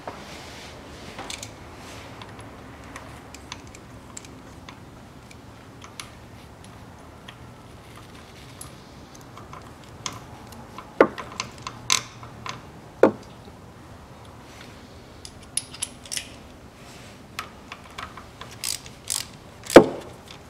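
Hand ratchet clicking in short runs and metal tool clinks on the Haldex coupling's pump housing as its bolts are turned in. A few sharp knocks stand out, the loudest near the end.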